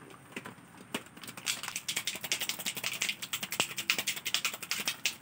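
A tomato and a razor blade rattling inside two bowls clamped together and shaken hard, a rapid clicking and knocking. It grows louder and denser about a second and a half in, as the blade slices the tomato.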